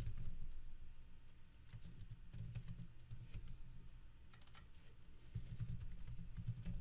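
Typing on a computer keyboard: irregular runs of quiet key clicks, over a low hum.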